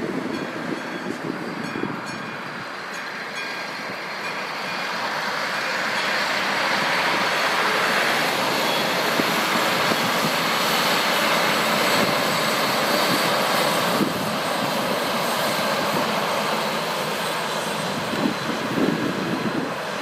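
Class 813/913 'bageta' two-car diesel railcar passing close by. The engine and rolling noise swell from about four seconds in, stay loud through the middle, then ease off. Wind buffets the microphone at the start and near the end.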